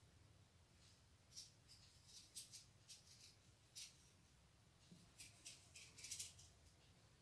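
Near silence, broken by faint, scattered soft clicks and rustles from a metal crochet hook working white yarn into stitches, a little denser about six seconds in.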